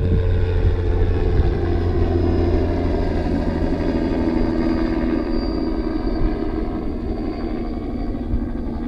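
An engine idling steadily, easing off slightly toward the end.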